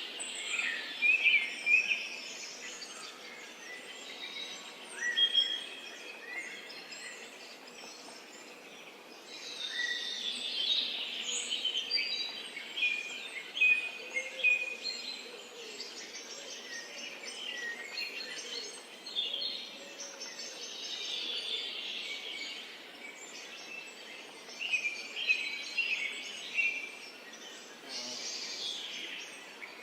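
Several songbirds chirping and trilling over a light background hiss, overlapping short calls that come and go in bursts.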